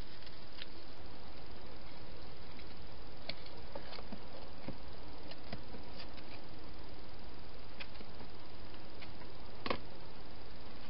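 Faint, irregular clicks and crunches over a steady hiss: a wild hedgehog eating dry food from a bowl inside a plastic feeding station. The sharpest click comes near the end.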